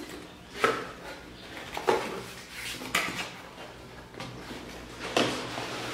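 Cardboard box being opened by hand, a graphics-card box, with its paper tab pulled and its flaps bent back: a few sharp scrapes and rustles of cardboard about a second apart.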